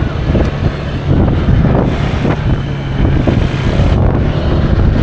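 Honda PCX scooter's engine running at a steady cruise, with heavy wind rush on the rider's microphone.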